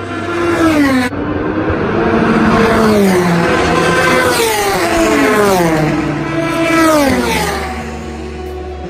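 Several endurance race cars passing one after another at speed, each engine note dropping in pitch as it goes by, with an abrupt cut about a second in.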